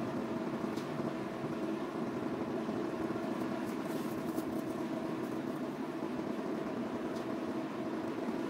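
Heavy construction machinery engine running steadily, a constant drone with a few faint ticks, from the SLJ900/32 mobile bridge erecting machine.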